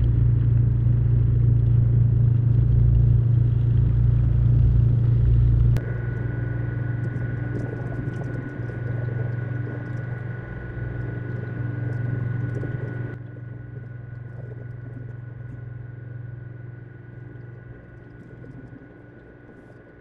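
KitchenAid dishwasher running a wash cycle with hand dish soap inside, its tub overflowing with suds: a steady low motor hum with water noise. It drops abruptly about six seconds in and then fades gradually toward the end.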